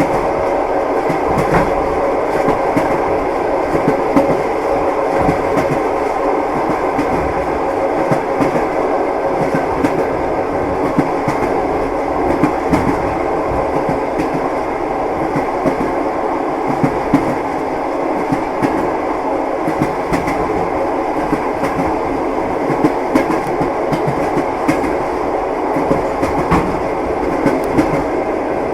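Moving train running on the rails: a steady rumble with the wheels knocking over rail joints, irregular clicks throughout.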